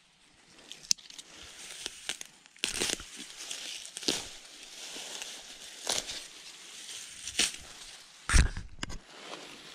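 Grass and weeds being gripped and torn up by hand: rustling and tearing, with sharp crackles of snapping stems and one heavy thump about eight seconds in.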